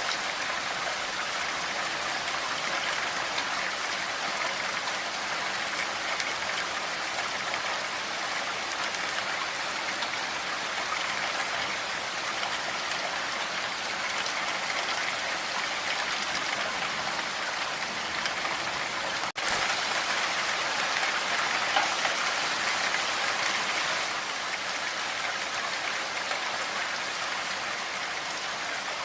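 Steady rain falling, a dense even hiss of drops on surfaces. About two-thirds of the way through it cuts out for an instant, then comes back a little louder for a few seconds.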